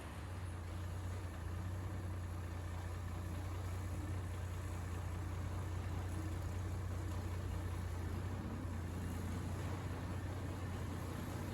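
A vehicle engine running steadily at low speed, giving a constant low hum.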